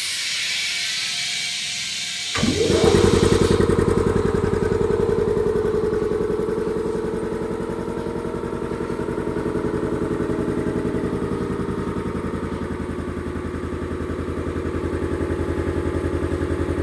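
Vacuum compressor: air hissing, then the motor starts a little over two seconds in and runs steadily with a rapid, even pulsing beat.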